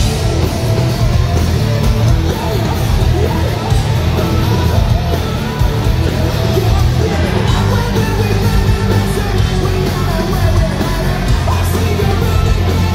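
A punk rock band playing live at full volume, with distorted electric guitars and sung and yelled vocals over heavy, booming bass, recorded from inside the crowd.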